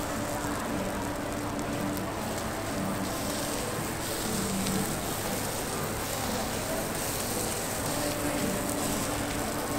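Steady background hubbub of a busy indoor food market: an even hiss with faint voices now and then.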